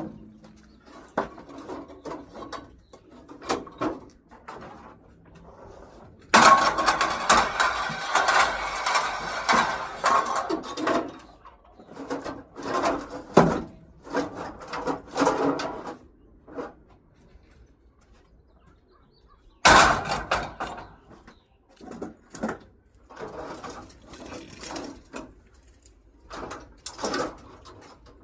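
Scrap metal clanking and rattling as it is handled, with scattered knocks and clinks. There is a long rattling clatter about a quarter of the way in, and another sudden loud clatter about two-thirds of the way through.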